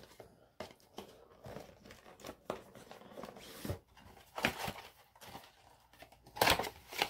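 Small cardboard advent-calendar box being opened by hand: scattered clicks, rustling, tearing and crinkling of the packaging, with a louder rustle about four and a half seconds in and another near the end.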